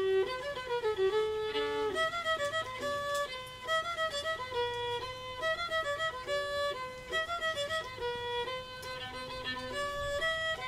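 Background music: a fiddle playing a melody that moves from note to note.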